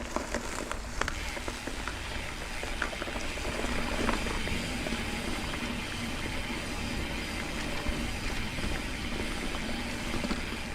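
Mountain bike riding over a dirt trail: steady noise of tyres rolling on dirt and wind on the microphone, with scattered sharp clicks and rattles from the bike over bumps.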